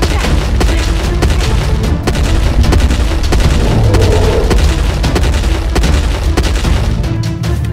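Action-film sound effects: a dense run of booms and impact hits over heavy rumbling bass, with music beneath.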